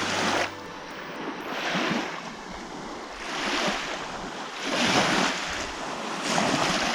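Waves washing onto a lake shore, a rushing swell about every second and a half, with wind.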